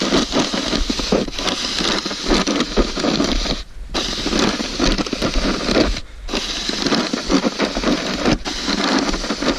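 A 36-inch snow pusher shovel blade scraping along a paved driveway as it pushes snow: a steady, gritty scrape broken by three short pauses between pushes.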